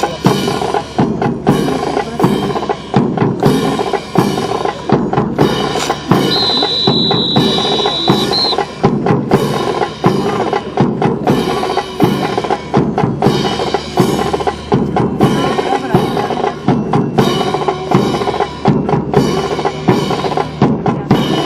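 Brass band music with a steady drum beat, about two beats a second. About six seconds in, a high steady tone sounds for about two seconds.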